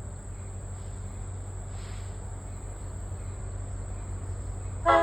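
Steady high-pitched insect trill, like crickets, over a low steady rumble. Right at the end a diesel locomotive's horn blast begins, loud and sudden.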